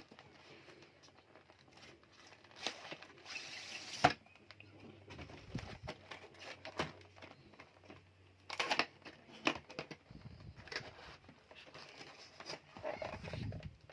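Handling of a mechanical keyboard and its packaging: scattered irregular clicks and knocks, with a stretch of crinkling rustle about three seconds in that ends in a sharp click.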